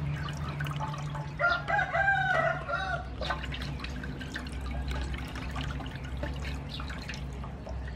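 A rooster crows once, about a second and a half in, for about a second and a half, the loudest sound here. Beneath it, water splashes and drips in a metal basin as hands wash a raw chicken.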